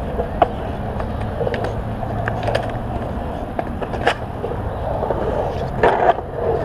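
Skateboard wheels rolling over a concrete bowl with a steady rumble and scattered sharp clicks. About six seconds in comes a louder burst of scraping as the skateboard's trucks grind along the bowl's coping.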